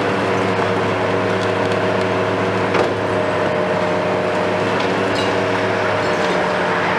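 Hitachi KMC 520 BTV high-reach demolition excavator running steadily under load, with cracking and crunching as its boom-mounted demolition tool breaks into the building's concrete and masonry. One sharp crack comes about three seconds in, and more knocks follow near the end.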